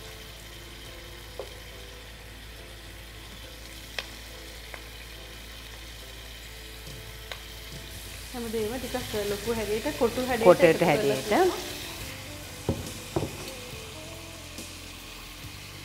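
Onions and battered pieces frying in a non-stick pot, stirred with a wooden spoon that taps the pan a few times. From about 8 to 12 seconds a louder run of wavering, squeaky pitched sounds rises over the frying.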